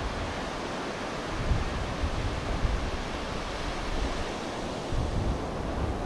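Atlantic surf at high tide: waves breaking and foam washing up the beach in a steady rush, swelling a little every second or two.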